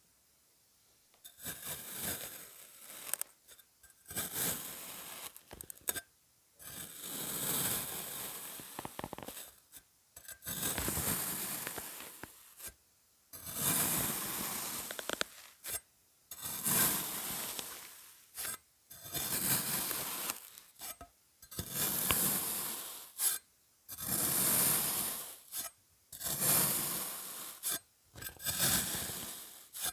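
Kinetic sand being cut: a series of about a dozen scraping, crunchy strokes, each lasting a second or two, with short silent gaps between them.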